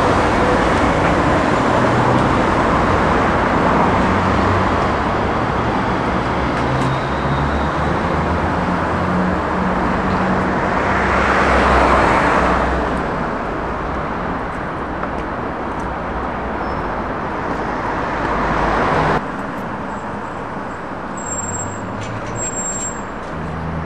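Street traffic noise, with a vehicle passing loudest about halfway through; the level drops suddenly a few seconds before the end.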